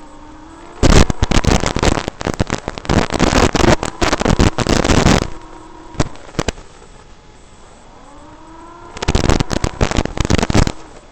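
The brushless motors and propellers of a TinyHawk Freestyle micro FPV drone, picked up on its own onboard audio. A faint motor whine rises in pitch, then breaks into a loud, harsh, crackling noise as the throttle is punched. This happens twice: once for about four seconds near the start and once for about a second and a half near the end.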